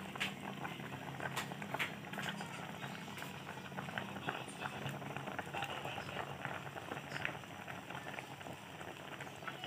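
Pinakbet with ground pork in coconut milk boiling in a wide aluminium pan: a steady bubbling with many small, quick pops as bubbles burst through the thick sauce.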